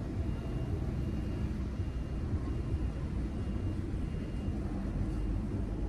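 Steady low rumble of a car, heard from inside its cabin.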